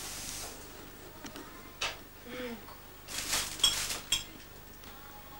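Dishes and cutlery clinking, in a cluster of bright ringing clinks a little past the middle, with a single sharper click before it.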